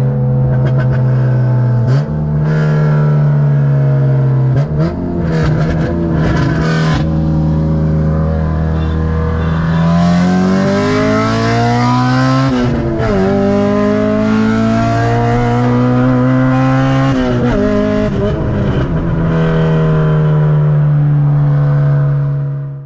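Honda K-series four-cylinder engine under hard acceleration in a street race. The engine note climbs in pitch and drops sharply at each upshift, about twice, then holds a steady drone before cutting off abruptly.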